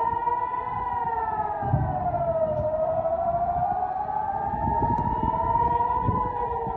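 A warning siren wailing, its tone rising and falling slowly: up for about the first second, down to a low point just before the middle, then climbing again and starting to fall near the end, over a low rumbling background.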